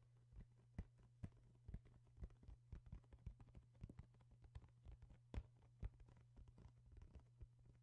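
A pestle knocking and tapping inside a white mortar in short, irregular strikes, about two to three a second, the loudest about five seconds in, over a low steady hum.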